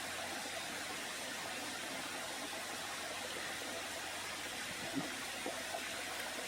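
Water pouring steadily out of a pond's 4-inch drain pipe, a constant rushing, as the pond drains off its excess after a heavy rain.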